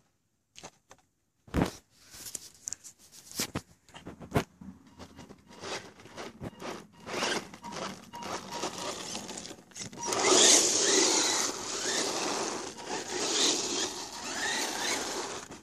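Electric 1:10-scale RC monster truck scrabbling and sliding over loose sandy dirt, a rough scraping spray of grit, loudest from about ten seconds in. Before that come scattered clicks and scrapes, with a sharp click about a second and a half in.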